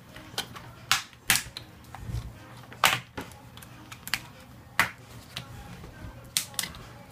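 Plastic snap clips of an HP Mini netbook's LCD bezel popping loose as fingers pry the bezel off the screen: a string of sharp, irregular clicks and snaps.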